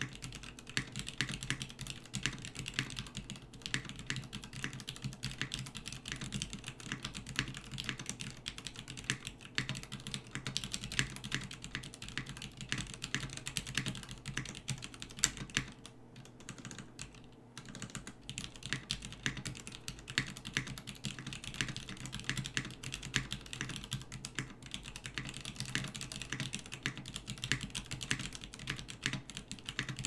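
Fast, continuous typing on a Rama M65-A aluminium-cased mechanical keyboard with 62 g vintage Cherry MX Black linear switches and doubleshot ABS keycaps: a dense, irregular run of keystrokes, with a short pause a little past halfway.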